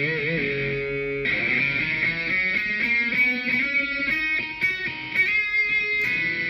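Epiphone Les Paul Prophecy electric guitar on its bridge pickup, a Gibson 61R&T humbucker, playing single-note lead lines with string bends and vibrato. The tone has a stronger squeal than with both pickups.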